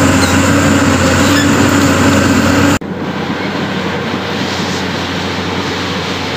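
Diesel engine of a Pindad Excava 200 hydraulic excavator running under load as it works soil with its bucket, with a steady low hum. About three seconds in the sound cuts abruptly to a quieter, steady running.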